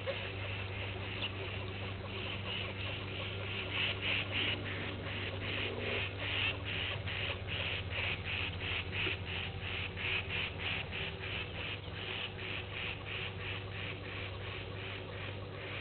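An animal calling in a steady rhythm, a short pulse about three times a second throughout, over a steady low hum.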